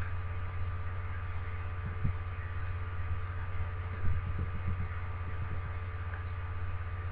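Steady low electrical hum with a few faint clicks, about two and four seconds in.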